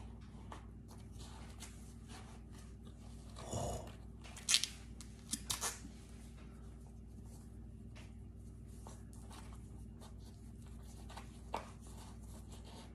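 Faint handling noises from putting on and lacing a pair of skate shoes: a few soft rustles and light knocks, clustered a few seconds in and once more near the end, over a low steady hum.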